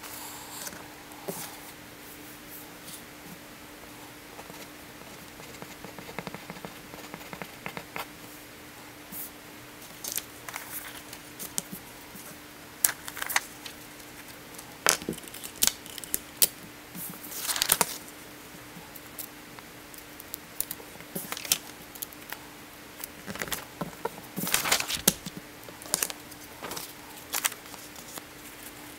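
Sheets of paper and a note card being handled and shifted on a desk: scattered rustling and crinkling with small sharp crackles, busier in the second half, over a faint steady hum.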